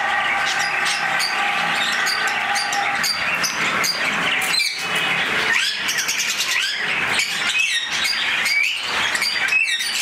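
Many caged birds chirping together, a busy chorus of short, rapidly repeated high chirps, with louder short rising calls cutting through several times in the second half.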